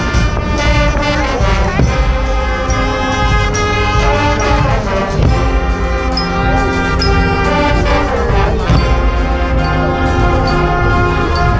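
A Swiss carnival Guggenmusik band playing live as it marches: a loud brass wall of trumpets, trombones and sousaphones over bass drums, with a couple of sweeping slides in pitch.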